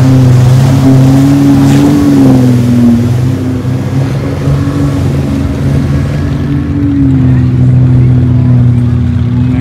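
Engine of a lifted SUV revving as it ploughs through a deep, flooded mud pit, its wheels churning mud and water. The engine note climbs about a second in, eases off by three seconds and climbs again around seven seconds.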